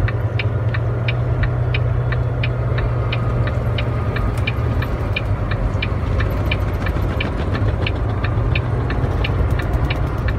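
Truck engine running steadily at low speed as heard inside the cab, a low even drone, with a light regular ticking about three times a second.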